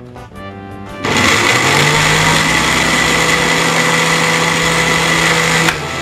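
Asanzo BF-400S food processor's 450 W motor running the empty glass meat-grinder jar. It starts about a second in, rises briefly in pitch as it spins up, then runs steady with a high whine. It cuts off with a click near the end.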